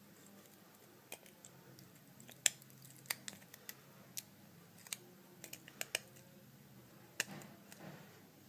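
Small, sharp clicks and taps, about a dozen at uneven intervals, from handling and pressing phone parts as a replacement iPhone digitizer is seated in its frame, over a faint steady hum.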